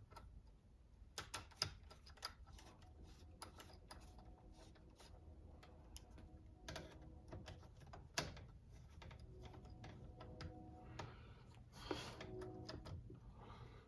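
Irregular light clicks and taps of small metal parts and a hand driver being handled, with a few sharper clicks, as screws are fitted into a wheelie bar mount.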